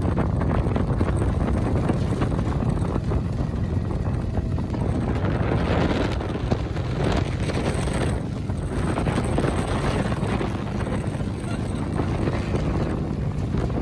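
Dune buggy engine running as it drives over the sand, with wind buffeting the microphone.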